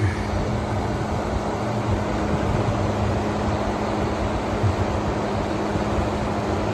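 2023 General Electric 5,000 BTU window air conditioner running on high cool: a steady fan rush with a constant low hum underneath.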